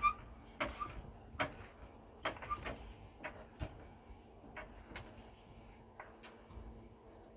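Vehicle jack being pumped to lift a van: a series of sharp mechanical clicks, about one or two a second, growing sparser near the end.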